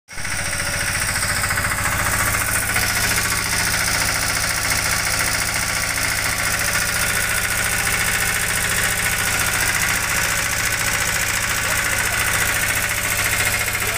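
Piaggio Ape three-wheeler's engine idling steadily with a rapid, even beat.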